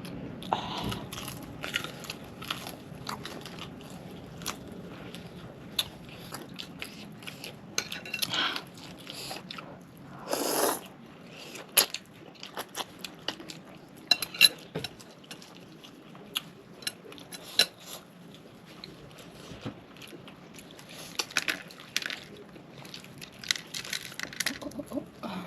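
Close-miked mukbang eating: biting into and chewing crispy KFC fried chicken, with irregular crunches and mouth clicks and one longer, louder crunch about ten seconds in.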